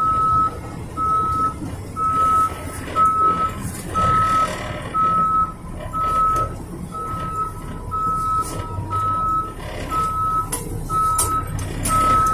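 Truck's reversing alarm beeping at a steady, even pace, about two beeps a second, as the tractor-trailer backs up. The truck's engine runs low underneath.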